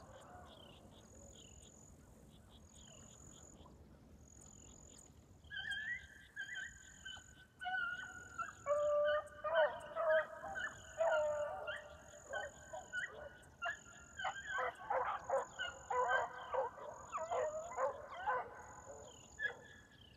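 A pack of beagles running a rabbit. For the first few seconds they are faint, then from about five seconds in several hounds bay together in overlapping long and chopped notes, the pack back on the track after a check. A faint high chirp repeats about once a second throughout.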